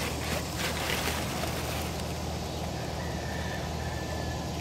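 A hand rustling through straw mulch and compost in a worm bin for the first second or so. A steady low background rumble runs under it throughout.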